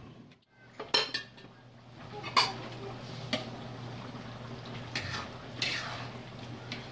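Metal lid lifted off a wok with a couple of clanks about a second in, then a spatula stirring chicken afritada in tomato sauce, knocking and scraping against the wok now and then.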